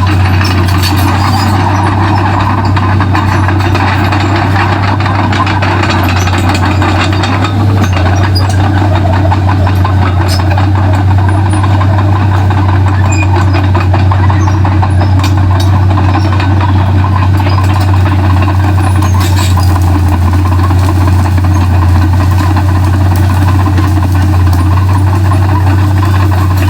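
Komatsu D31P bulldozer's diesel engine running steadily with a deep hum, with scattered sharp clicks and cracks over it.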